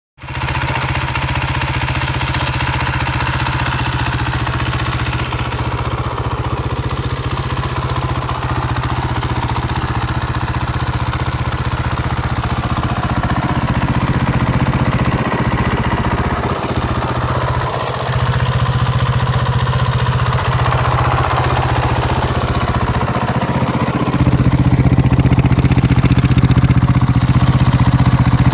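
KTM 500 EXC single-cylinder four-stroke engine idling steadily through an Akrapovic exhaust with dB-killer fitted. It steps up a little in loudness twice in the second half, without any revving.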